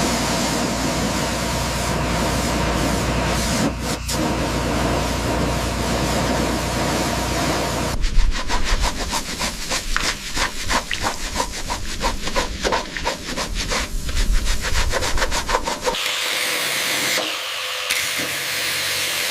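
Workshop tool noise in three cut segments: a steady scraping noise, then rapid repeated strokes for several seconds, then a different steady noise near the end.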